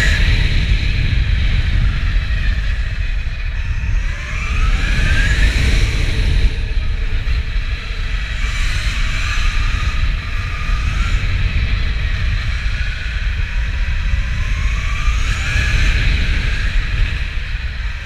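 KTM Freeride E electric supermoto's motor whining. Its pitch rises as the bike accelerates out of corners, about four seconds in and again near the end, over a steady high whine, with heavy wind rumble on the helmet-mounted microphone.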